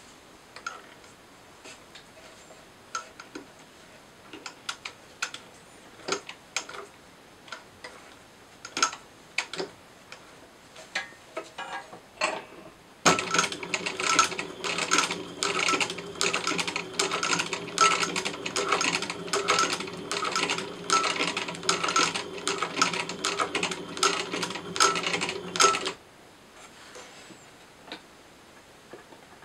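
Pfaff sewing machine stitching: about thirteen seconds of steady running with a fast, even ticking from the needle mechanism, starting and stopping abruptly partway through. Before it come scattered light clicks and taps as the material is handled under the presser foot.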